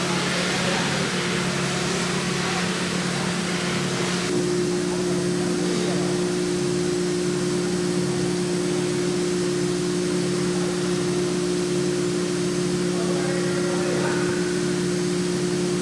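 Gantry CNC machining center with a 5.5 kW spindle motor running with a steady, even hum. A hiss is heard through the first four seconds, then a second, higher steady tone joins the hum.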